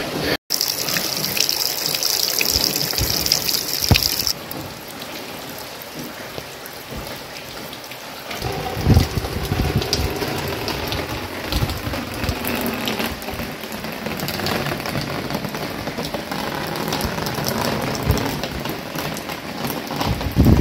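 Rain falling, a steady hiss of water. It drops out for an instant near the start and becomes quieter and lower about four seconds in, with scattered low thumps later on.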